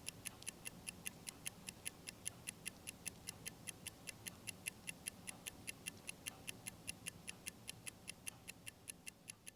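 Restored Webster Atomic Star pendant watch ticking steadily, its one-jewel pin lever movement running at about five ticks a second.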